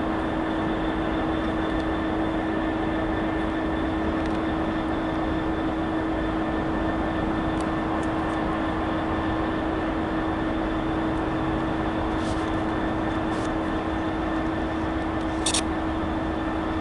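Class 66 diesel-electric freight locomotive approaching slowly, its EMD two-stroke V12 running with a steady drone and a constant whine. A brief click sounds near the end.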